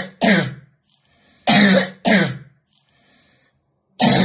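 A child's chronic cough: loud, harsh coughs coming in pairs, a pair about every two seconds, with faint breaths between. It is the persistent cough a 12-year-old boy has had for about eight years.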